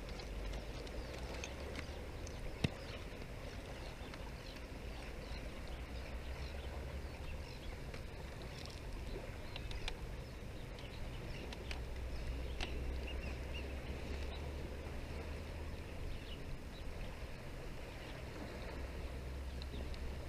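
Light clicks and rattles of an aluminium camera tripod being extended and set up by hand, with one sharper click about two and a half seconds in, over a steady low outdoor rumble.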